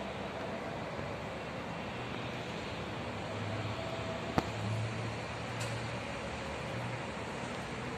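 Construction-site background noise: a steady din, with a low machinery hum swelling from about three seconds in. One sharp knock comes about four and a half seconds in, and a fainter click a second later.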